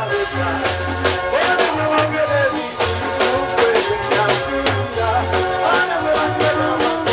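Live band music played loud through a PA: a drum kit keeping a steady beat, a bass line, and electric guitar. A male singer sings into a hand-held microphone over it.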